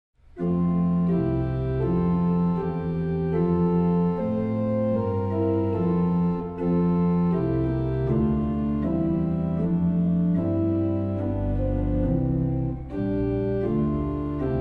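Organ playing slow, sustained chords over a deep bass line, with brief breaks between phrases about six and a half seconds in and again about thirteen seconds in.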